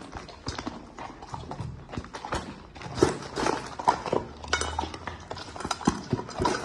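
A dog eating: a quick, irregular run of clicks and crunches.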